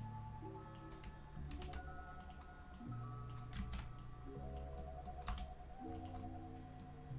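Computer keyboard and mouse clicks, several sharp taps scattered through, two of them louder in the second half, over soft background music of held chords.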